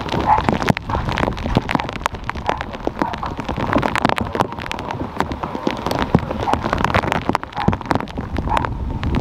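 Rain pattering close to the microphone: dense, irregular taps over a steady low rumble.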